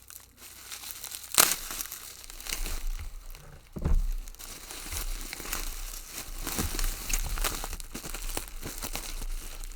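Packing material being crumpled and torn open by hand as a lock is unwrapped, an irregular crinkling with a couple of sharper crackles.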